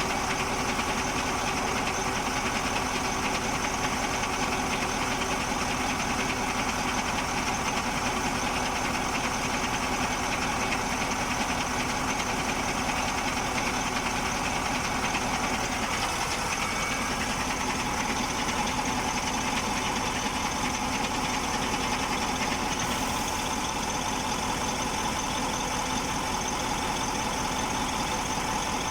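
KAMAZ truck's diesel engine idling steadily while its injectors' return (leak-off) flow is being measured.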